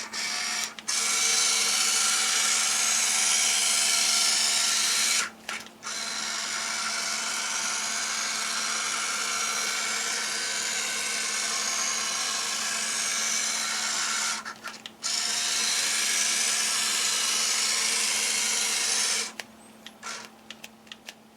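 GoLight 7900 remote-controlled searchlight's pan-and-tilt motors running steadily in long stretches, with brief stops about five and fifteen seconds in. The motors stop near the end, followed by a run of light clicks.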